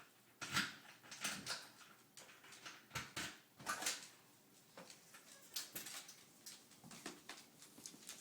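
Small bichon dog sneezing repeatedly: a string of short, sharp sneezes, the loudest in the first four seconds, then weaker ones.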